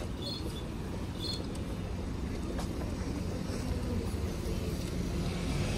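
City street traffic: a steady low rumble of passing cars and buses, growing louder near the end as a vehicle comes closer. Short high chirps repeat about once a second over the first second and a half.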